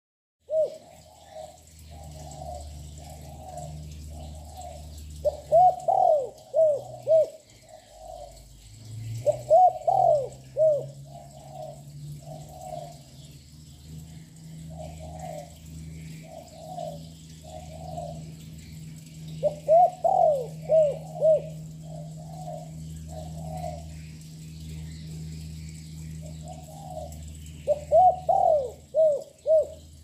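Young spotted dove calling continuously: a steady run of soft coos, broken four times by louder phrases of several quick notes.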